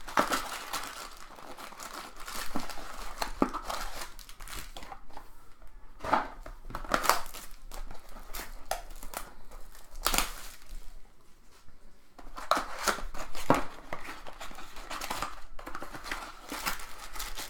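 Crinkling, rustling and tearing of plastic wrap and cardboard packaging as sealed trading card boxes are opened by hand, in a run of irregular crackles.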